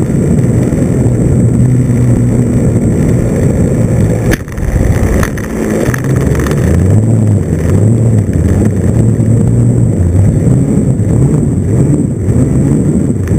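The .40-size glow engine of an RC trainer plane running at low throttle, heard close from the plane's belly with wind rush. A knock comes about four seconds in as the landing gear touches down. The engine note then rises and falls as the plane rolls through grass.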